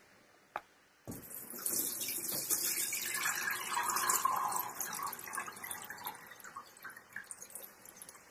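Nettle dye water pouring from a pot through a stainless steel sieve, splashing into the cooking pot below. The pour starts about a second in, is heaviest in the middle and thins to a trickle near the end.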